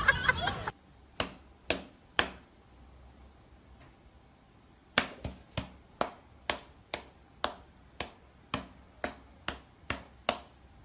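Sharp taps: three about half a second apart, a pause, then about a dozen more, evenly spaced at roughly two a second. A loud, noisy sound cuts off suddenly under a second in.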